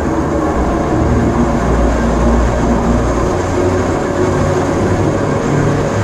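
Electric railcar of the Pilatus cogwheel railway running on the steep rack track, a steady low hum and rumble from its motors and wheels.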